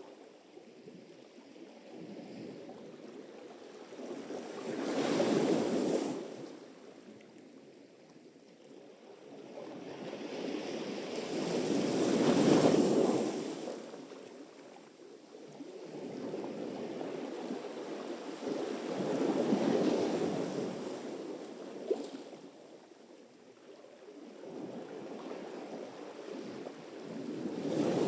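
Sea surf: four waves break and wash up in turn, about seven seconds apart, each swelling to a peak and fading away.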